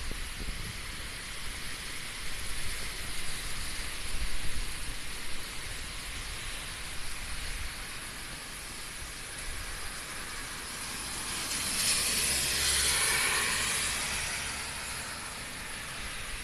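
Typhoon wind and heavy rain making a steady rushing noise, with low buffeting in the first half and a stronger gust swelling up about twelve seconds in, then easing.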